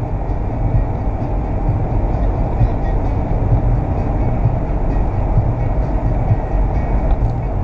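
Steady road and engine noise of a car driving at highway speed through a long road tunnel, heard from inside the car: a low, even rumble with no changes.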